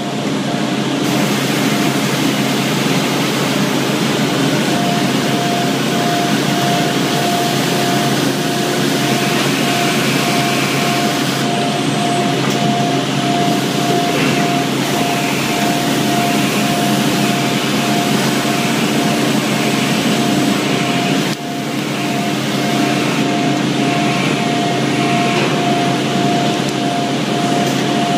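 Loud, steady din of cotton gin machinery running, a dense mechanical roar with a low drone and a tone that pulses at an even rate.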